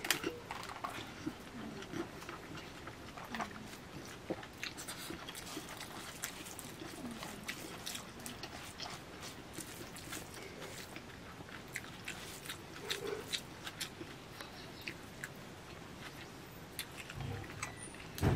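Close-up eating sounds: mouth chewing and smacking on chicken biryani, with fingers squeezing and mixing rice on a banana leaf, in a run of short irregular clicks. A dull knock comes near the end.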